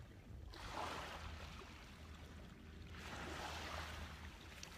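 Small waves washing on a beach, faint, in two long washes, one starting about half a second in and another about three seconds in.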